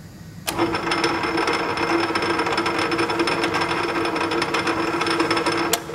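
Sheldon metal lathe switched on about half a second in and run in back gear, its open gear train meshing with a steady hum and a dense rattle of gear teeth. It is switched off with a click just before the end and the sound stops at once.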